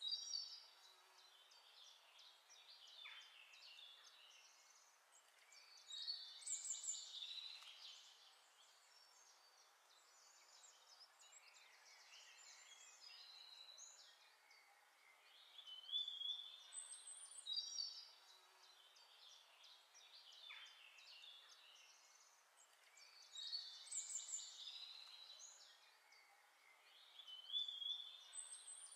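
Faint birdsong: clusters of short, high chirps and trills every few seconds over a light hiss, the same passage repeating.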